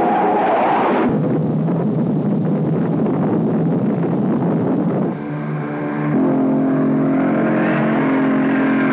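Film soundtrack: a dense rushing rocket roar for a missile in flight. Music chords end about a second in, and sustained chords come back about five seconds in.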